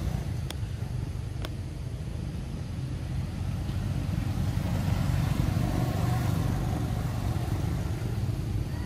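Motor scooters passing on a nearby road: a steady low engine drone that swells about five seconds in. Two short sharp clicks in the first second and a half.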